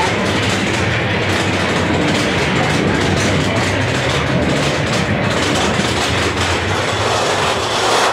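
Mine-train roller coaster running along its track inside a rock tunnel: a loud, steady rumble of the cars with a rapid, irregular rattling clatter of wheels and train.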